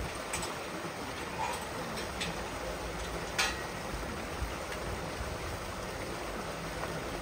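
Steady outdoor background noise with a few faint, short ticks.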